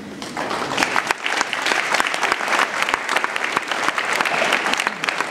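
Audience applauding: many hands clapping together, beginning about half a second in and continuing steadily.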